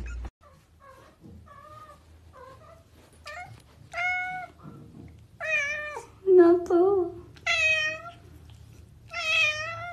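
A domestic cat meowing over and over: a few faint short meows at first, then several loud, long, wavering meows in the second half.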